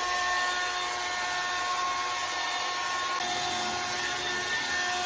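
Handheld hair dryer blowing steadily: a constant rushing hiss with a motor whine that steps down in pitch about three seconds in.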